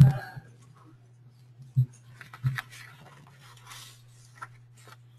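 A steady low hum with three soft thumps: one at the start, one about two seconds in and another half a second later. Faint scratchy rustling with small clicks runs through the middle.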